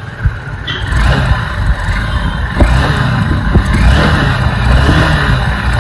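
Honda Unicorn 160 BS6's single-cylinder engine revved with the throttle on its stand, heard close at the silencer. The exhaust note picks up about a second in and then rises and falls.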